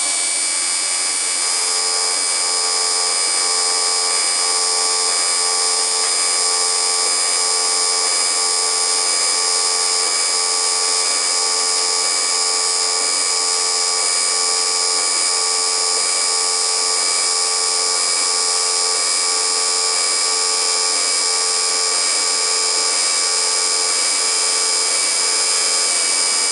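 AC TIG welding arc on aluminum from an HTP Invertig 221 set to 90 Hz AC frequency: a steady, high-pitched electric buzz that holds one pitch for the whole bead.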